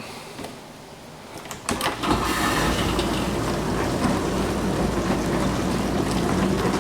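GE dishwasher started into its drain cycle: a few clicks, then about two seconds in the drain pump starts up with rushing water and a steady mechanical running noise. It is the racket reported in drain mode, caused by debris caught in the drain sump under the filter basket.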